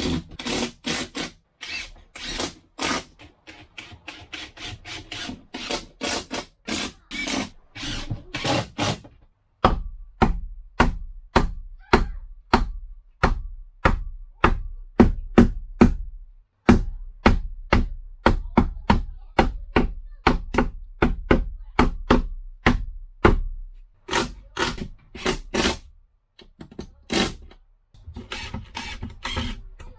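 Hammer driving nails into a wooden reinforcing batten overhead, a steady run of sharp blows about two to three a second, with a few short pauses.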